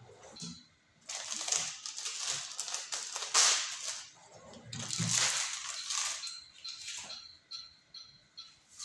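Crinkling, rustling handling noise close to the microphone, in two long bursts starting about a second in and again about four and a half seconds in.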